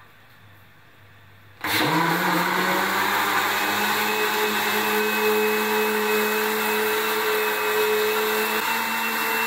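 Philips countertop blender switched on about one and a half seconds in, its motor quickly spinning up to a steady whine as it blends a liquid mix of milk, cream and salted egg yolks.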